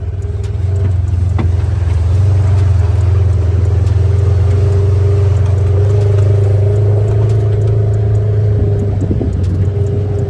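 Side-by-side UTV's engine running steadily while driving along a dirt trail: a loud low drone with a steady whine above it. It grows louder about a second in.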